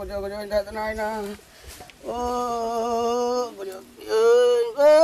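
A voice singing a slow song in long held notes, the pitch stepping up toward the end, with a steady lower held note underneath for the first second or so.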